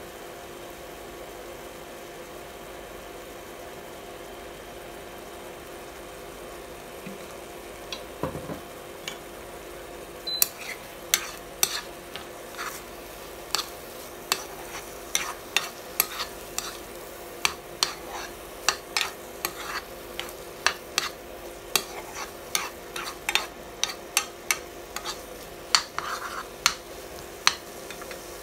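White spatula stirring and scraping eggs and green beans around a nonstick frying pan, making sharp irregular taps and clicks that start about eight seconds in and come thick and fast from about ten seconds, over the steady sound of the food frying.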